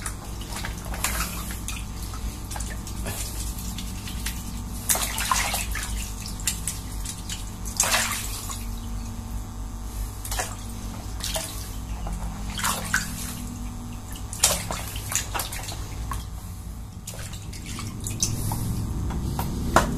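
Hands kneading and rinsing a lump of chewed chewing gum in a plastic basin of water: irregular splashes and sloshes, over a steady low hum.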